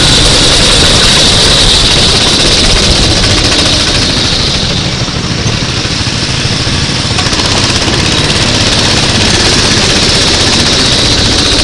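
Racing kart engine running hard, easing off briefly about five seconds in and then picking up again.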